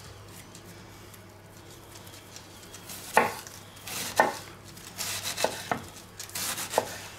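Kitchen knife cutting through a head of lettuce on a wooden cutting board. After a quiet first few seconds there is a series of short crunchy strokes, each with the blade knocking the board.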